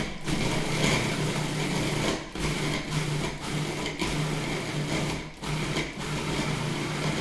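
Countertop food processor running, its blade grinding pitted dates, maple syrup and a little warm water into a thick, sticky paste. A steady motor hum with several brief dips in the sound.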